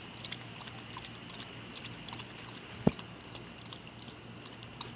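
A pet drinking from a water bowl: a run of quick, small wet laps and clicks. One sharp thump about three seconds in.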